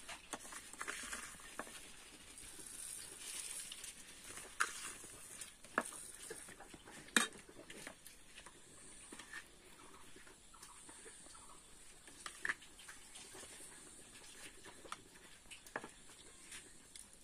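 A metal spoon clinking and scraping against a plastic bowl as salt and spice are sprinkled over small green fruits and stirred through them. Scattered light taps, the sharpest about seven seconds in.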